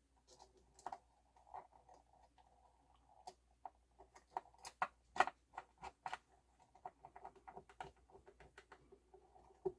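Screwdriver driving a small screw back into the Pioneer PL-560 turntable's chassis: a faint, irregular run of metallic clicks, taps and light scraping.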